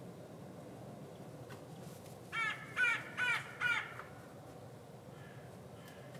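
Crow cawing four times in quick succession, a little over two seconds in.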